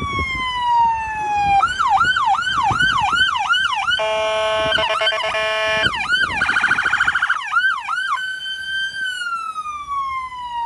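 Fire utility truck's electronic siren cycling through its tones: a slow falling wail, then a fast yelp about three times a second, a steady horn tone for about two seconds, a rapid warble, more yelp, and a long wail that rises, holds and falls again near the end.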